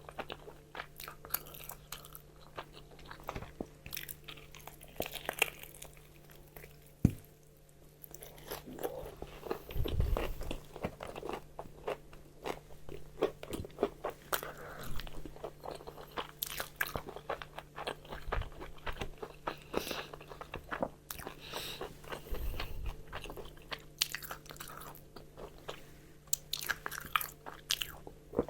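Close-miked eating of crispy fried chicken: bites crunching through the fried coating and chewing, with dense sharp crackles throughout and a brief lull about a third of the way in. A faint steady low hum runs underneath.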